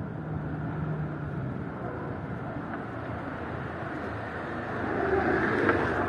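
Street traffic noise: a vehicle passing, growing louder toward the end.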